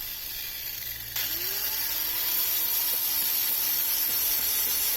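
Power tool with a sanding disc grinding old blacking off a steel narrowboat hull: a steady hiss with a faintly wavering motor tone, getting louder about a second in.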